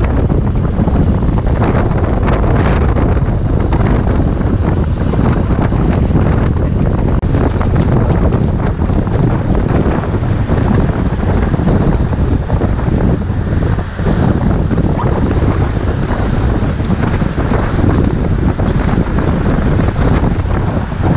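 Wind buffeting the microphone of a camera on a moving motorcycle: a loud, steady rushing noise, heaviest in the low end, that covers any engine or road sound.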